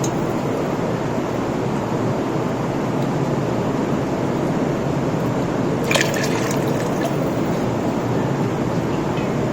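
Water being poured into a large pot of biryani masala, a steady rushing pour, with a brief metallic clatter about six seconds in.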